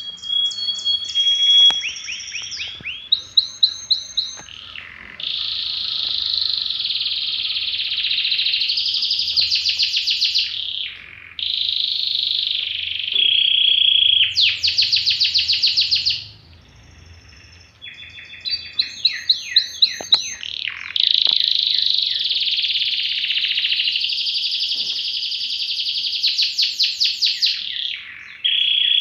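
Songbird singing in long, loud warbling phrases broken by runs of fast repeated trilled notes, with a short pause a little past halfway.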